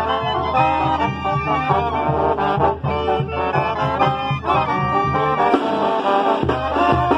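Mexican banda brass band playing a pasodoble, heard from among the horns: alto horns, trombones and trumpets up close over tuba bass and percussion. The low bass drops out for under a second near the end, then comes back in.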